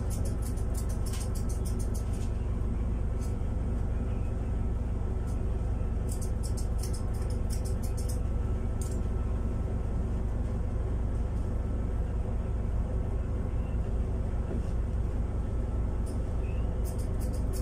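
Grooming scissors snipping a cat's fur in quick runs of sharp clicks near the start, around the middle and near the end, over a steady low hum.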